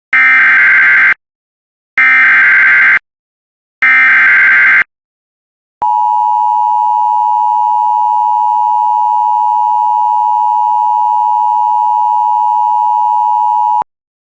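Emergency Alert System SAME header: three bursts of digital data tones, each about a second long, then the steady two-tone EAS attention signal for about eight seconds, which cuts off abruptly.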